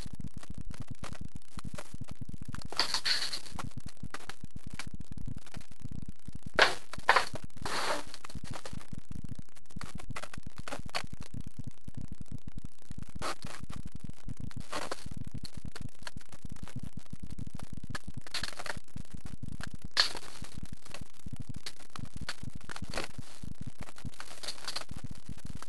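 Steady scratching and rustling close to the microphone, with scattered scrapes and a few sharp knocks, the loudest about seven seconds in and again near twenty seconds.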